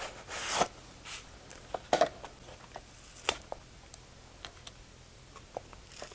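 Cardboard product packaging being handled: a short sliding swish of the box against its sleeve near the start, then scattered light taps and clicks.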